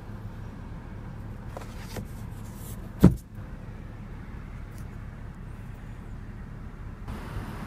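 Steady low hum inside the cabin of a 2014 Lexus CT200h, with a few faint clicks and a single sharp knock about three seconds in. Near the end the background hiss grows louder.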